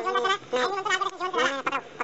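People talking: only speech, no other clear sound.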